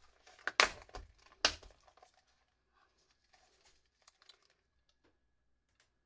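Plastic resistor assortment box being opened: two sharp plastic snaps about a second apart, then light rattling and rustling as gloved fingers pick through its compartments.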